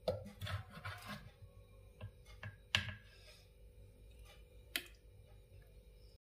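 A few light clacks and knocks from a long-handled ladle against a clay pot and a plate as thick fish curry is served onto rice, the sharpest nearly three seconds in, over a faint steady hum; the sound cuts off suddenly just before the end.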